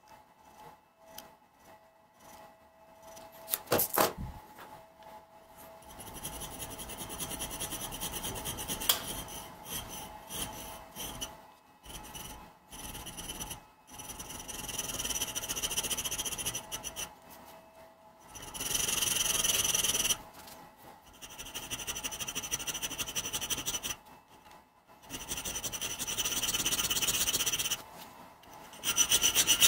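Hand file scraping across the spine of a 52100 steel knife blank held in a vise, cutting a row of small notches. The filing comes in several bursts of rapid strokes with short pauses between them, after a few sharp clicks about four seconds in.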